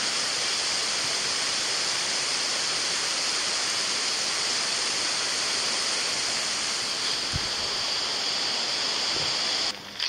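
Rushing river water, a steady loud hiss with no rhythm that cuts off abruptly near the end.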